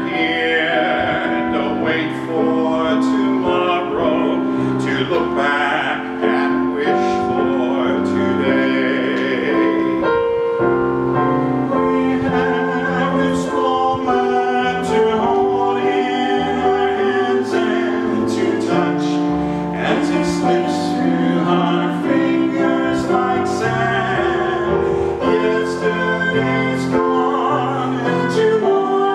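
A man singing a slow hymn with held, wavering notes over sustained keyboard chords.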